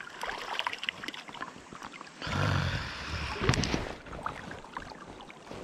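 River water sloshing and splashing, with scattered clicks and knocks, louder for a stretch in the middle.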